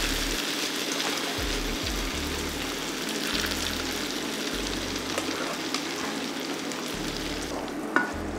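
Food sizzling steadily in a hot frying pan, with background music underneath.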